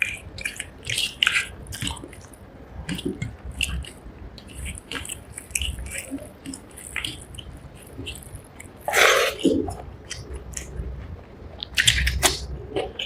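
Close-miked chewing of rice and fish curry: wet smacking and small crunching clicks in an uneven rhythm, with one louder rush of noise about nine seconds in.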